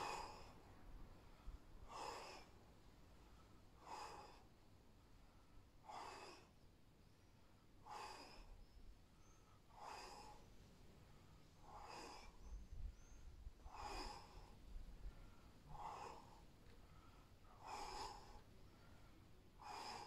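A man's faint, rhythmic exercise breathing: a short, forceful exhale about every two seconds, in time with bicycle-kick crunches.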